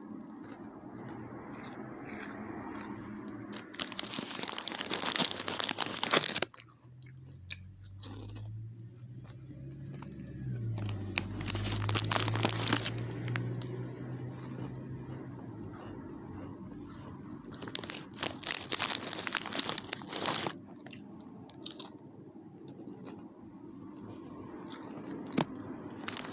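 Crisps being bitten, crunched and chewed close to the microphone, in repeated sharp crackles, with several louder bursts of packet rustling as a hand goes into the bag.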